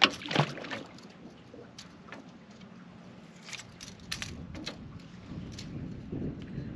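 Sharp clicks and light rattles of fishing tackle being handled while a new hook is rigged, the two loudest at the very start and about half a second in, then scattered smaller clicks over a faint steady hiss.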